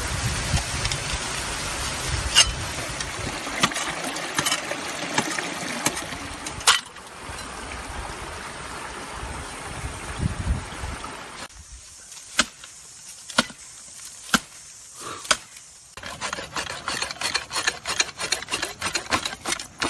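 Steel blade of a folding camping shovel scraping and knocking against rock, with running water from a small waterfall behind it for the first several seconds. Then single sharp taps of the blade on stone about once a second, and near the end a fast run of rasping ticks as the shovel's serrated edge saws bamboo.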